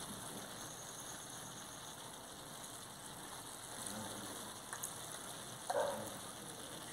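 Shrimp and vegetables frying in a large pan over a charcoal fire, a steady sizzle while vinegar is poured in. A brief, louder sputter comes near the end.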